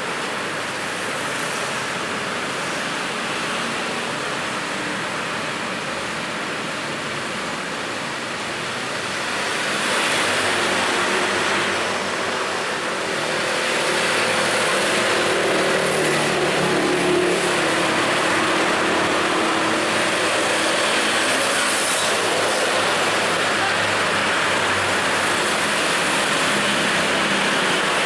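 Road traffic noise: a steady wash of passing vehicles that gets louder about ten seconds in. An engine hum stands out near the middle.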